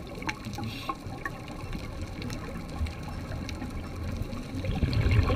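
Underwater sound of scuba regulator exhaust bubbles, a low bubbling rush that grows louder near the end, over a background of scattered sharp clicks.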